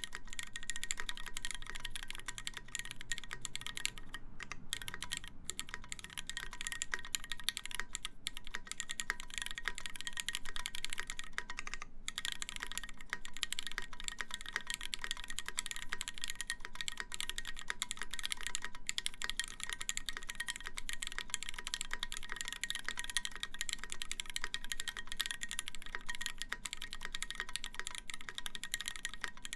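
Continuous fast typing on a mechanical keyboard with lubed Cherry MX Black linear switches, a 316 stainless steel plate and GMK keycaps: a dense stream of key clicks and bottom-outs, with a couple of brief pauses.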